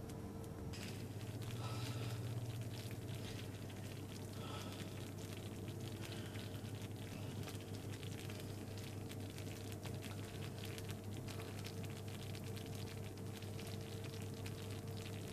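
Rosehip jam boiling in a saucepan, its thick bubbles popping in quick, irregular clicks over a steady low hum.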